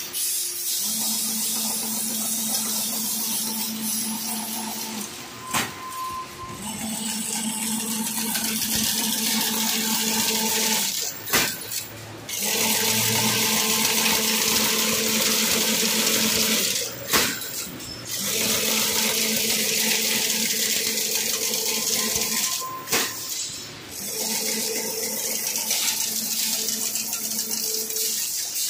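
Double-wire fully automatic chain link fence machine weaving 5 mm wire, running in repeating cycles: a steady hum under a high hiss, broken about every six seconds by a knock and a short dip in level.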